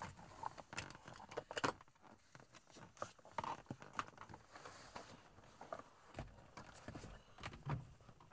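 A child moving about and climbing over a car's leather seats: scattered soft clicks, knocks, creaks and clothing rustle.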